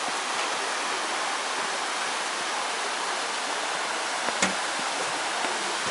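Steady rushing of a multi-tiered mountain waterfall pouring down a rock face, with one brief click about four seconds in.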